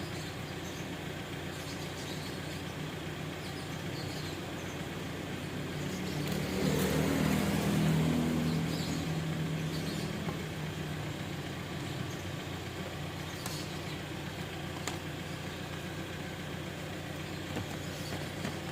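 A steady low engine-like hum that swells louder about six seconds in and fades back a few seconds later, like a motor vehicle passing.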